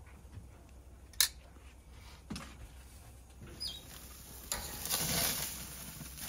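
Stainless steel lid of a Weber Summit gas grill clanking sharply as it is opened about a second in, then steaks sizzling on the hot grates, the sizzle swelling near the end as a steak is lifted with metal tongs.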